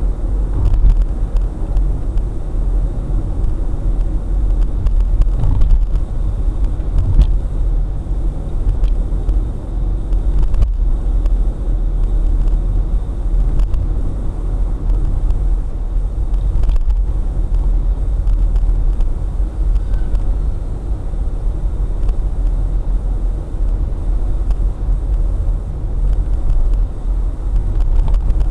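Steady low rumble of a car driving along a city street, heard from inside the cabin through a dashcam's microphone: engine and tyre noise.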